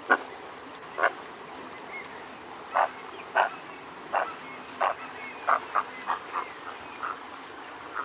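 American bittern giving a series of about a dozen short squawks, unevenly spaced and coming faster in the second half. These are the squawks of a startled or migrating bird, heard over a steady background hiss.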